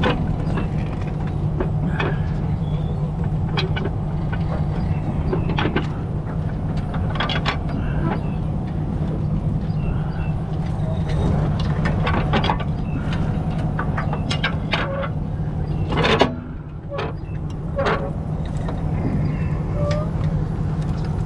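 Heavy diesel truck engine idling steadily, with scattered knocks and clicks over it and one sharper knock about sixteen seconds in.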